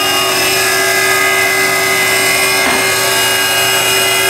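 Fatigue Dynamics RBF-200 rotating beam fatigue testing machine running at speed, giving a loud, steady whine with several tones as it spins a test specimen under its bending load.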